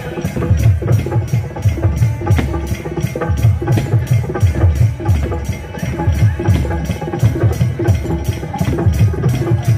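Desia folk dance music for a Koraputia natak, carried by drums and other percussion playing a fast, steady beat, with little or no singing.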